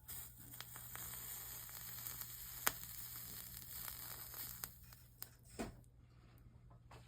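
Flux sizzling under a hot soldering iron as 60/40 solder is melted along the copper-foiled seams of a stained glass panel: a steady hiss with a few sharp crackling ticks, dying away about five and a half seconds in.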